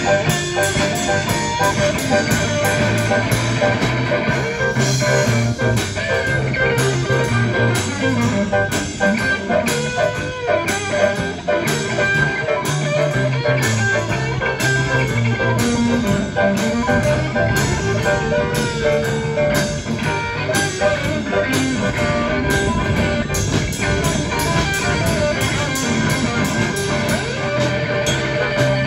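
Rock 'n' roll band music: guitar over a steady drum beat, an instrumental stretch with no singing.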